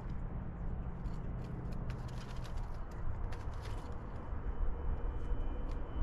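Steady low rumble of distant road traffic, with scattered short, high chirps and ticks from birds around the feeders.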